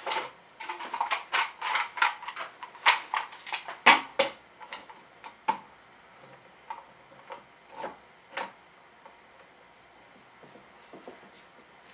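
Bar clamps clicking and knocking against a wooden forming block as they are set and tightened, a quick run of sharp clicks for the first few seconds, then a few scattered ones before it goes quiet.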